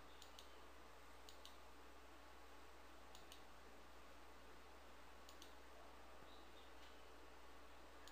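Faint clicks of a computer mouse button, four times, each heard as a press and a release about a fifth of a second apart, over a low steady hum.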